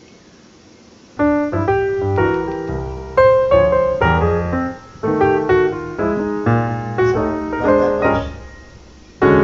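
Background piano music that comes in about a second in and plays melodic phrases of struck notes, thinning out briefly near the middle and fading before a new phrase starts near the end.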